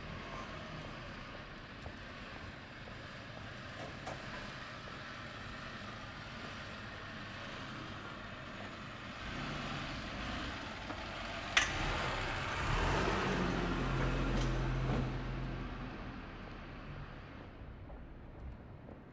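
City street traffic: a steady hum of road noise, with a motor vehicle passing close by about two-thirds of the way through, its engine rumble swelling and then fading. A single sharp click comes just before the vehicle is loudest.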